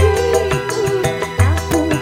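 Live dangdut band playing: a melody that bends and slides in pitch over a steady beat of drum and bass hits, loud through the stage PA.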